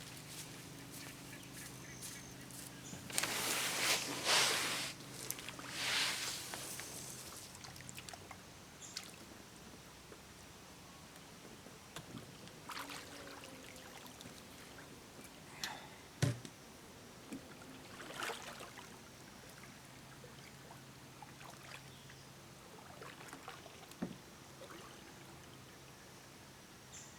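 Canoe paddle strokes in water: two louder splashing swishes a few seconds in, then quieter strokes with drips and a few sharp knocks.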